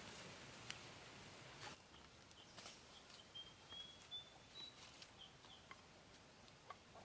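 Quiet rural ambience: a bird gives a short run of high, thin chirps, each a little higher than the last, in the middle, with scattered faint clicks around it.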